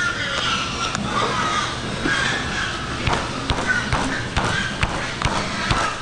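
A rod scraping and knocking inside a hog feeder's drop tube as packed feed is poked loose, with irregular taps and thumps that come more often in the second half, over steady background noise. The tube is clogged with feed that got wet in the bins and caked.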